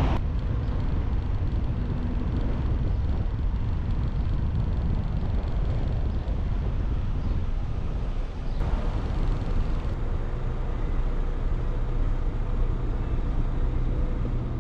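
Car driving slowly through town streets: a steady low rumble of engine and tyres on the road. A little over halfway through, the noise changes abruptly.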